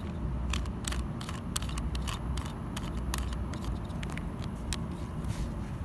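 Small sharp clicks and rubbing of a 3D-printed plastic fin section being screwed onto a rocket body by hand, over a steady low outdoor rumble.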